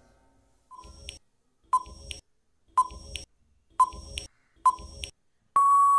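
Quiz countdown-timer sound effect: five short ticking beeps about a second apart, then a long steady beep near the end that signals time is up.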